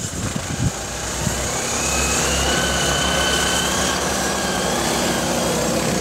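Two IKUDZO tracked motor dogs (motorized snow tow units) accelerating hard from a standing start across snow, their small engines at high revs. The engine whine rises over the first few seconds and then holds steady at speed.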